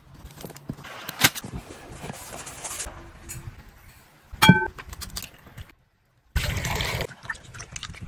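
Quick handling sounds of food preparation: crackling rustle of dry twigs, then a glass bowl giving a bright ringing clink about halfway through, and near the end a short rush of noise.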